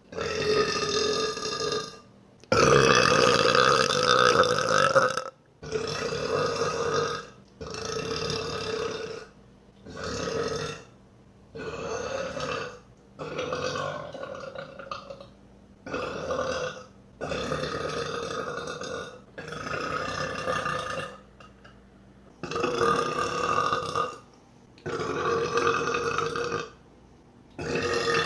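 A woman burping over and over: about a dozen long, drawn-out burps in quick succession, each lasting one to three seconds, with short pauses between them.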